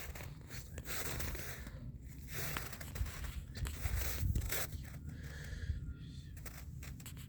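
Irregular tearing, scraping and crunching noises in uneven bursts, over a steady low rumble.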